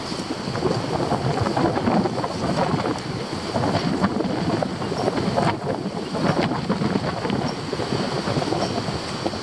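Gusty wind buffeting a goat-mounted action camera's microphone, a loud irregular rushing noise that rises and falls, with a few brief clicks.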